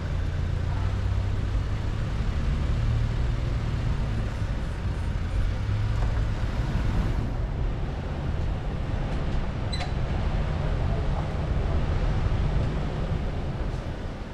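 Steady low rumble of vehicle and road noise, with a brief high tick near ten seconds in.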